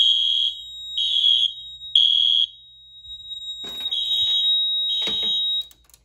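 Wheelock MIZ fire alarm horn sounding in half-second high-pitched blasts about once a second, three blasts, a short pause, then two more, with a steady high tone running underneath. The Fire.Lite MP-12 panel is in alarm from the BG10 pull station. Clicks and rattles of handling come near the end, and the alarm cuts off shortly before the end as the panel is silenced.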